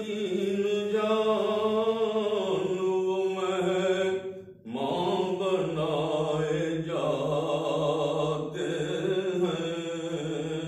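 A man's solo, unaccompanied voice chanting a naat, an Urdu devotional poem in praise of the Prophet, in long drawn-out held notes, with a short break for breath about four and a half seconds in.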